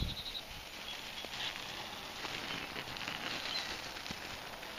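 Faint rustling and handling of a fabric carrying case, with scattered light clicks.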